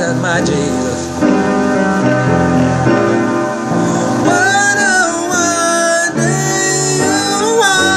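A man singing a slow worship song in long, sliding held notes over an instrumental accompaniment with guitar.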